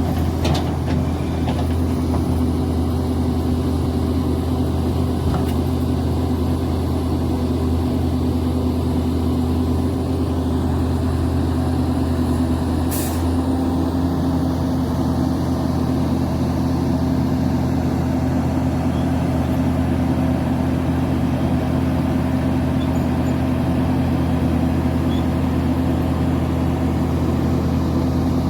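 Link-Belt excavator's diesel engine running steadily, with a brief high-pitched hiss near the middle.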